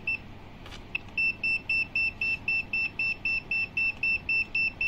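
UNI-T UT256 clamp meter's buzzer beeping in NCV mode: a rapid train of short high-pitched beeps, about four a second, starting about a second in. It signals that the meter senses live AC voltage in the cable near its sensor.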